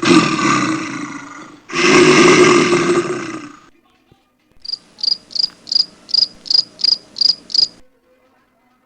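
Two long, rough roar-like sounds one after the other, then a run of about nine short, high, evenly spaced chirps, about three a second, like a cricket.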